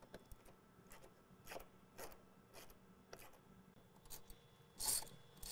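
Hand ratchet clicking in short bursts about twice a second, with a louder burst near the end, while Torx screws are backed out.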